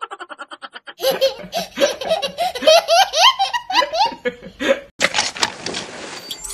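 A child laughing hard in short, repeated bursts, used as a meme sound effect. A brief, faint, fast ticking comes before it, and a whooshing transition sound follows near the end.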